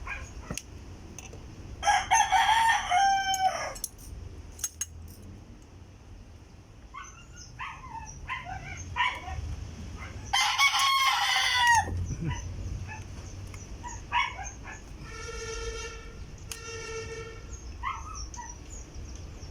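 A rooster crowing twice, each crow lasting about a second and a half, the two crows about eight seconds apart, over a low steady hum. Two short steady tones follow near the end.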